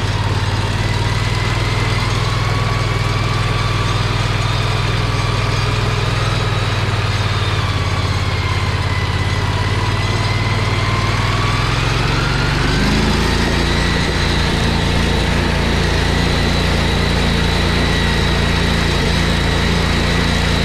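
Predator 670 V-twin engine running under way, with a steady whine that wavers in pitch. About two-thirds of the way through, the engine note and the whine step up.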